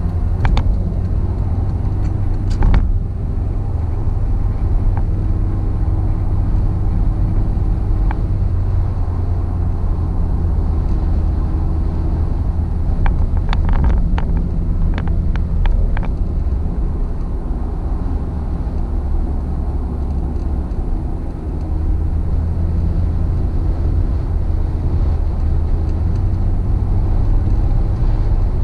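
Car interior noise while driving at highway speed: a steady low drone of engine and tyre-road rumble through the cabin. A few brief clicks and rattles sound near the start and again around the middle.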